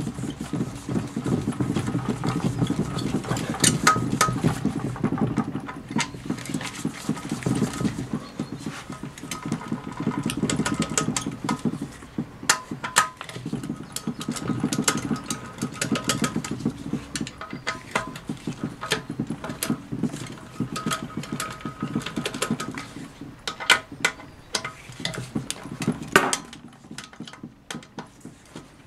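Hand ratchet clicking rapidly in repeated runs as valve body bolts on a Ford 5R55S automatic transmission are backed out, with a few sharp metal clicks in between.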